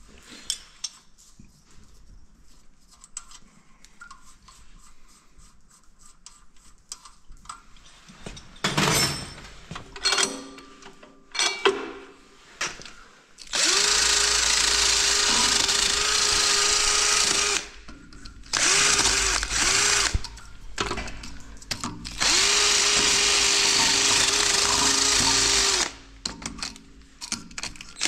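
Light metallic clinks and knocks of tools being handled, then a power tool run in several bursts of a few seconds each, each a steady whine that spins up and winds down.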